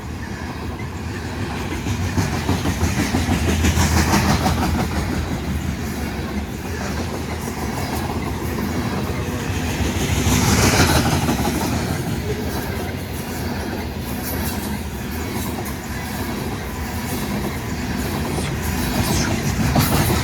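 Loaded coal train's cars rolling past, steel wheels clicking rhythmically over the rail joints, the level swelling and easing a few times as the cars go by.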